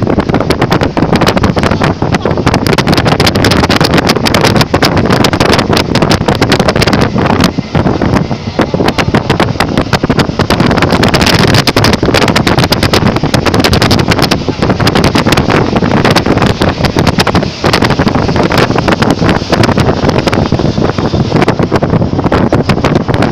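Loud wind buffeting the microphone of a phone filming from a moving vehicle, with constant crackling gusts over steady road and vehicle noise.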